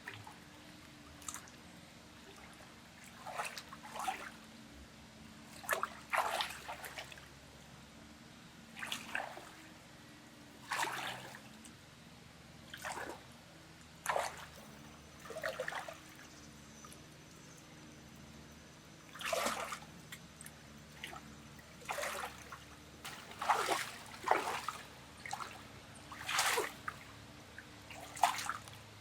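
Water splashing and trickling in short bursts, one every one to three seconds, over a faint steady hum.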